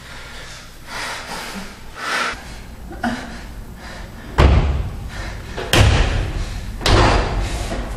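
Heavy slamming thuds, the first about halfway through, then repeating evenly about every second and a quarter, each with a short echoing tail.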